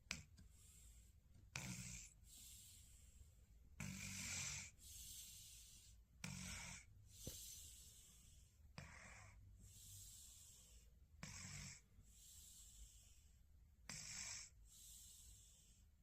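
A sleeping person snoring softly, one snore about every two and a half seconds, with quieter breathing between.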